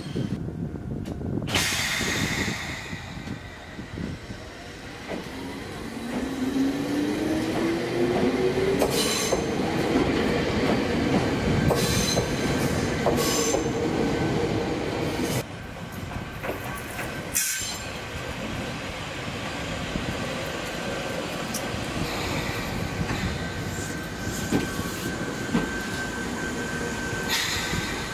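Resistance-controlled Omi Railway 820 series electric train moving along a station platform: the traction motor whine rises in pitch as it gathers speed, then holds steady. Underneath are the running noise of the wheels on the rails, wheel squeal and a few sharp clacks at rail joints.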